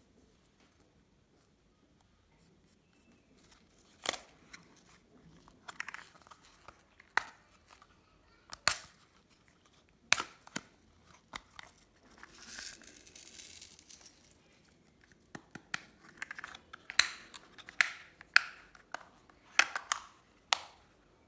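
Slime being worked by hand: irregular sharp sticky pops and clicks. About twelve seconds in there is a couple of seconds of soft hissing, and the pops come thicker near the end.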